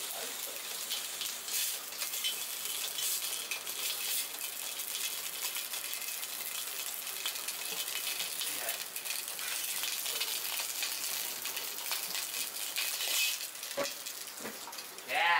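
Slices of pork belly searing in a hot wok: a steady high sizzle with small spitting crackles.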